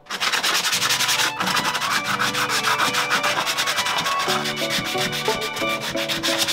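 Hand sanding: sandpaper rubbed back and forth in rapid strokes over the boat's bilge floor, preparing it for paint. Background music plays under it, its notes stronger from about four seconds in.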